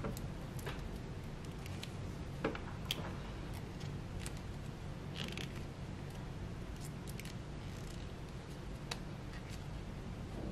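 Faint scattered clicks and small handling noises of pliers twisting the wire ends of a leather earring together, over a steady low hum.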